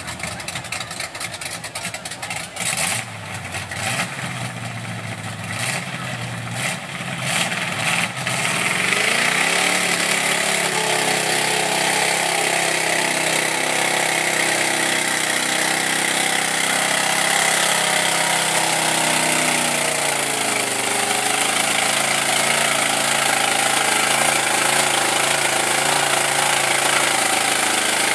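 A lifted Chevrolet mud truck on tractor tires revving its engine hard as it churns through a mud pit. The engine climbs in pitch about eight seconds in and holds at high revs, with a brief dip about two-thirds of the way through.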